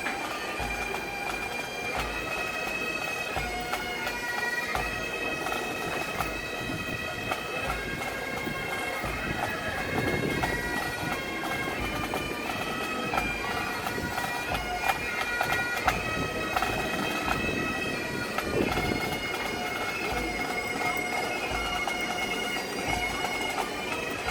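Bagpipes playing a tune, the melody moving over a steady held drone.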